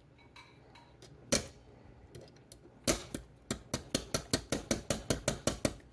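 Hammer tapping a pin back into a broken stainless steel kayak drive-chain link: one sharp blow, then a quick, even run of about a dozen taps, five or six a second.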